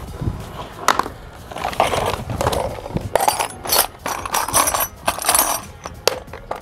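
Tools and materials being handled on a work surface: irregular clatter, knocks and rustling, with a few sharp clinks.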